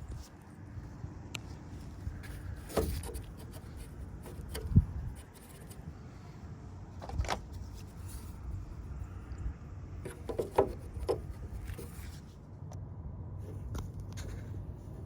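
A few scattered knocks and clicks over a low steady rumble, the loudest knock about five seconds in and a quick cluster of clicks near the end.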